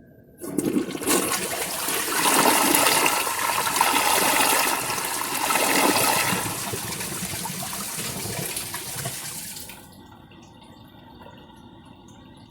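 Woodbridge dual-flush toilet flushing on its big flush. A sudden rush of water starts about half a second in and runs loud for about nine seconds, then drops to a quieter steady hiss.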